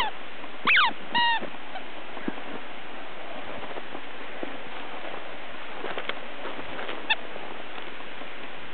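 Rubber squeaky toy ball squeaking as the puppy bites it, over a steady hiss. There are three quick squeaks in the first second and a half, the first two falling in pitch and the third held on one note, and one short squeak about seven seconds in.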